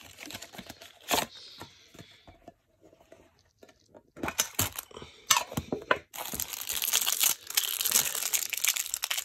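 Handling of trading cards and a metal card tin, with scattered sharp clicks, then about six seconds in a cellophane wrapper starts crinkling and tearing steadily as it is pulled off a stack of Match Attax cards.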